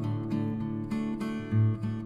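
Background music on plucked, strummed acoustic guitar, with a deep bass note returning about every second and a half.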